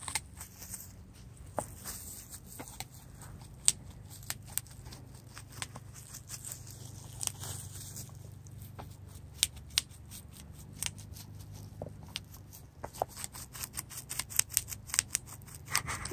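A dog biting bubble wrap, the bubbles popping in sharp, irregular snaps between the crinkle of the plastic, coming quicker near the end.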